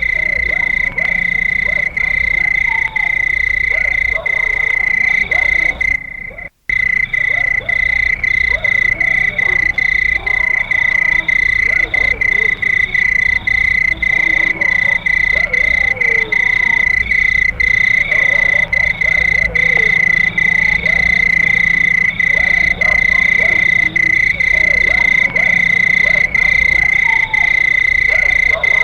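Crickets chirping in a continuous, steady high trill of a night chorus, with lower, wavering animal calls underneath. The sound briefly cuts out about six seconds in.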